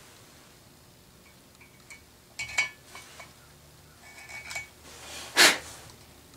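Metal parts clinking and knocking as a two-stroke reed cage is handled and fitted against the cylinder's intake port: a few light clinks, then one louder sharp clack near the end.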